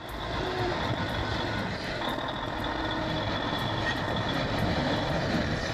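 Large heavy machine running steadily, its engine and mechanical noise holding at an even level.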